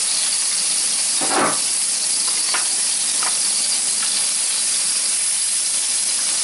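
Tomato slices sizzling and hissing steadily on a Severin electric grill's wire rack. About a second in there is one short louder knock, followed by a few light clicks of the fork and spatula against the grate.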